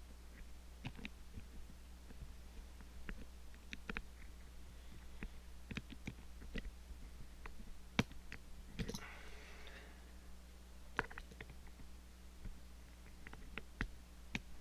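Faint, irregular light clicks and ticks of a lock pick and tension tool working the levers inside an Ingersoll 10-lever padlock, over a steady low hum, with a short rustle about nine seconds in.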